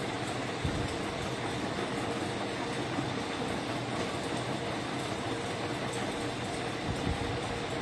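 Steady rushing background noise with a low mechanical hum, unchanging throughout, broken by a couple of soft low bumps.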